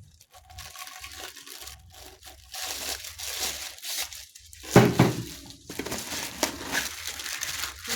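Plastic packaging crinkling and rustling as vacuum cleaner parts are unwrapped, growing busier after about two and a half seconds, with one sharp knock just before the middle.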